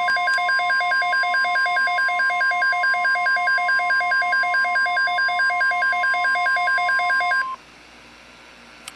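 Emergency Alert System attention tone from a NOAA Weather Radio broadcast: a steady 1050 Hz tone with a rapid pulsing beep over it, about five beeps a second, signalling that an urgent weather alert follows. Both cut off abruptly about seven and a half seconds in, and there is a short click near the end.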